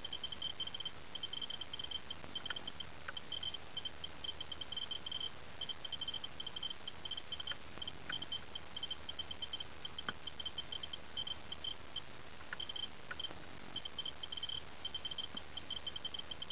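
Geiger counter clicking as short, high-pitched blips at an irregular rate, several a second and often in quick clusters. It is very active from cosmic radiation at about 98,000 ft altitude. A faint steady hiss runs underneath.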